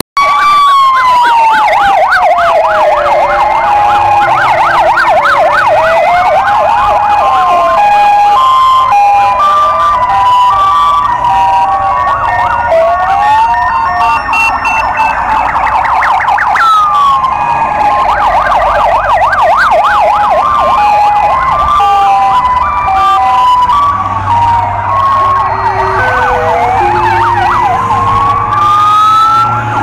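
Several police car sirens sounding at once as a convoy of patrol cars passes, loud throughout: slow rising-and-falling wails, fast yelps and a two-note hi-lo pattern overlap, with engine rumble growing near the end. Recorded through an old mobile phone's microphone.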